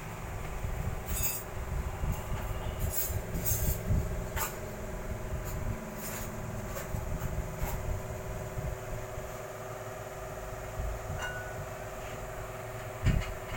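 Scattered small clicks, clinks and knocks of screws, tools and plastic parts being handled while an LED TV is taken apart, with one louder knock near the end. A steady low hum runs underneath.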